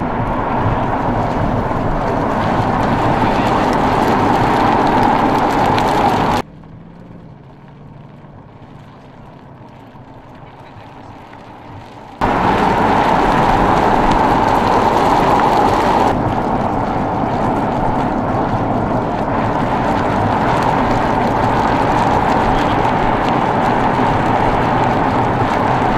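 Ford Mustang driving at speed: a steady rush of engine, tyre and wind noise. About six seconds in it cuts abruptly to a much quieter low hum for about six seconds, then the loud driving noise returns just as suddenly.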